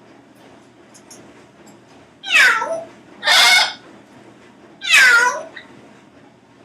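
Congo African grey parrot imitating a cat's meow: three loud calls, the first and last sliding down in pitch, the middle one harsher and raspier.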